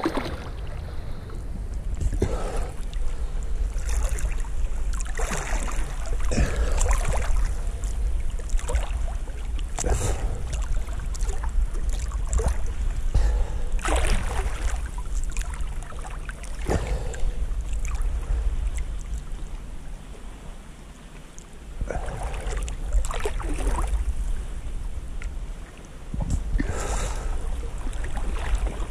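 Lake water sloshing and splashing around a camera held at the water surface by a floating swimmer, with a steady low rumble of water and wind on the microphone. Splashes come irregularly every few seconds as small waves and the swimmer's hands move the water.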